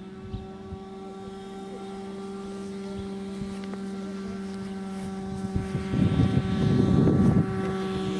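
Steady pitched hum that grows slowly louder, with a louder rush of low noise from about six to seven and a half seconds in.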